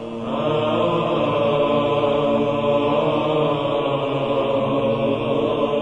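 Church choir chant as background music: voices holding long sustained notes over a steady low drone, swelling in just after the start.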